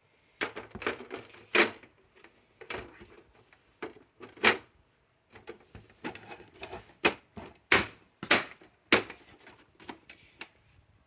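Irregular series of sharp clicks and knocks, about a dozen loud ones with smaller taps between, like hard objects being handled.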